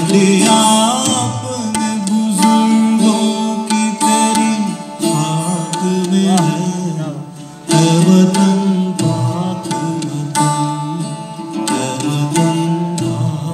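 A man singing a patriotic song, accompanied by tabla and a long-necked plucked string instrument. The music dips briefly about halfway through, then comes back in at full strength.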